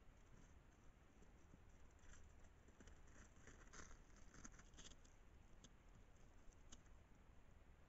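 Faint scratching, rustling and small clicks from a striped skunk sniffing and foraging about in snow among rocks close to the microphone; the clearest clicks come about two to five seconds in.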